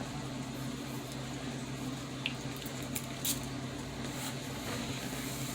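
Steady low electrical hum with a few short, soft hisses, one about three seconds in, from a toning-mist spray bottle being handled and pumped.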